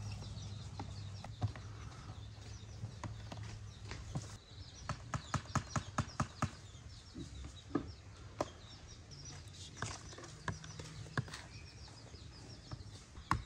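A metal spoon clinking and scraping against a plastic bowl and tubs as a creamy ice-cream mixture is spooned out, in short sharp clicks that come in a quick run about five to seven seconds in. A low steady hum fades out about four seconds in.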